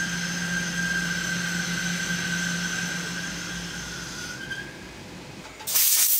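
CNC lathe boring titanium 6Al-4V with a Kennametal DFSP .875 inserted drill used as a boring bar, under coolant: a steady high whine over a low hum that dies away about three-quarters of the way through. Near the end a compressed-air blow gun starts a loud hiss as chips are blown out of the machine.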